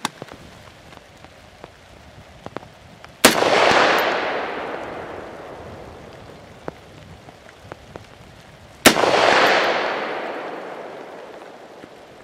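Two shots from a Norinco M305 semi-automatic rifle in .308 Winchester, about five and a half seconds apart, each followed by a long echo that rolls away over about three seconds.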